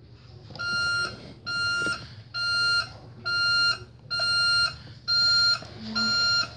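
Toy garbage truck's electronic beeper sounding seven even, high-pitched beeps, about one a second, like a reversing alarm.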